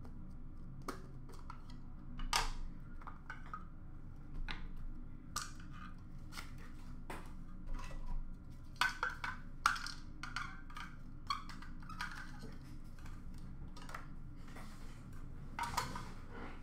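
Trading cards being handled: irregular clicks, taps and papery rustles as cards are flipped through and set down on the counter, over a low steady hum.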